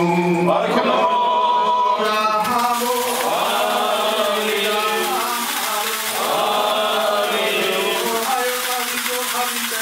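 Male clergy chanting a liturgical hymn of the Malankara Orthodox (West Syriac) rite, in a steady, continuous line.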